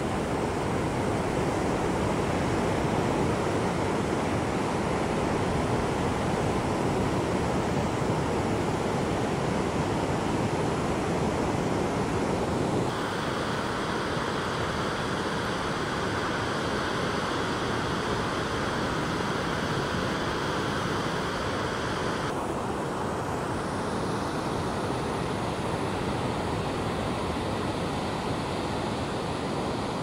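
Ocean surf breaking and washing on a beach, a steady noise with wind on the microphone. The sound changes abruptly about thirteen seconds in and again about twenty-two seconds in.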